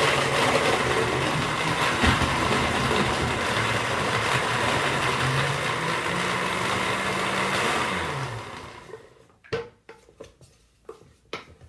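Kitchen blender running, chopping cubes of foliage material in water, with a steady motor tone. About eight seconds in the motor winds down and stops, followed by a few sharp clicks and knocks.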